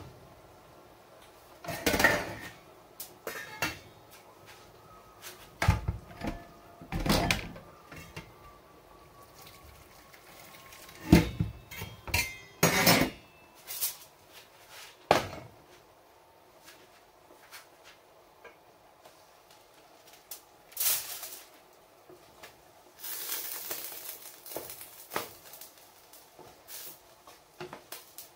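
Kitchen cookware and utensils being handled: irregular knocks and clatters of pots, dishes and metal utensils, the loudest a little after ten seconds and again about thirteen seconds in, with a brief rushing noise about twenty-three seconds in.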